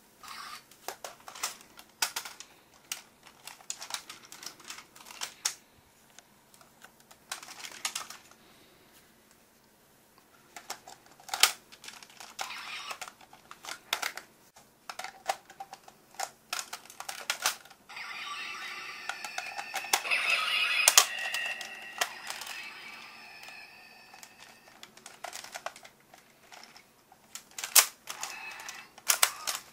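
Hard plastic clicks, snaps and clatter from a Go-Onger Engine Bus-on toy bus being handled and opened up. About two-thirds of the way through, a few seconds of electronic tones sound, the loudest part.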